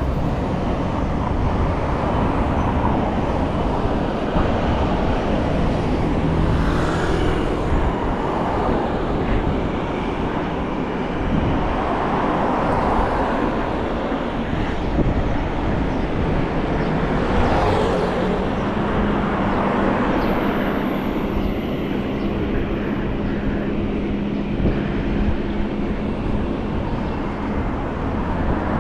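Wind and road noise on a GoPro carried on a moving mountain bike, with traffic on the road: a steady rush with a few louder swells as vehicles go by, and a low steady hum joining in about two-thirds of the way through.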